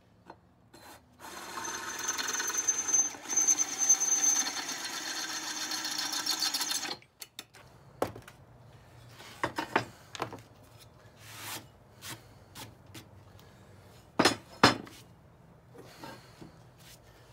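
Power drill boring a mounting hole through a steel plate: the bit grinds through the metal with a high whine for about six seconds, then stops abruptly. Scattered clicks follow, with two sharp knocks near the end.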